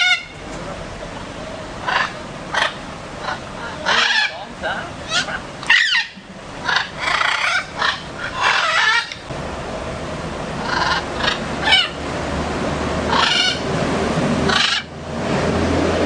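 Parrots calling in a string of short, harsh squawks and chirps, some sweeping in pitch. A low steady hum joins about halfway through.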